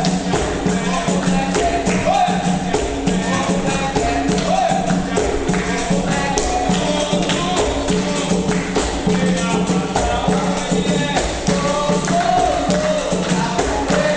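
Capoeira roda music playing at a steady rhythm: a pandeiro's jingling strokes over a low repeating tone, with voices singing.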